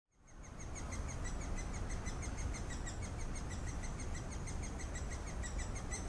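Great spotted woodpecker nestlings begging from inside the nest hole: a continuous rapid chatter of short, high chirps, about six or seven a second, over a low background rumble. The sound fades in at the start.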